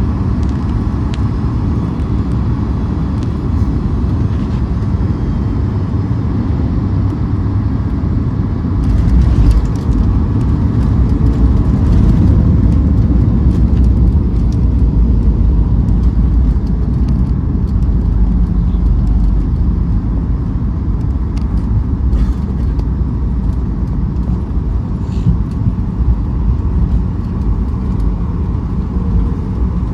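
Boeing 737 MAX cabin noise heard from a passenger seat: a steady low rumble of the CFM LEAP-1B engines and airflow that swells about nine seconds in and stays louder for more than ten seconds before easing.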